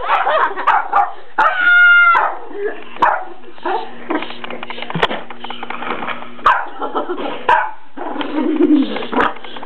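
Dachshund barking and yipping over and over, with one longer high yelp about two seconds in and short knocks between the barks.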